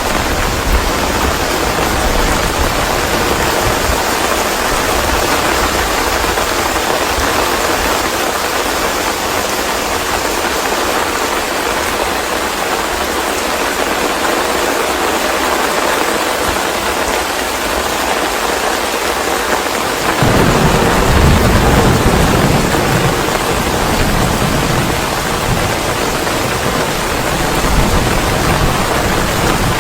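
Steady rain with thunder: a deep low rumble comes in suddenly about two-thirds of the way through and keeps rolling under the rain.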